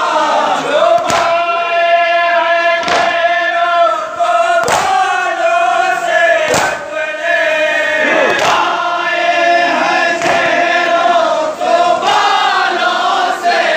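A group of men chanting a nauha (Muharram lament) in unison, with loud chest-beating (matam) hand strikes landing together about every two seconds.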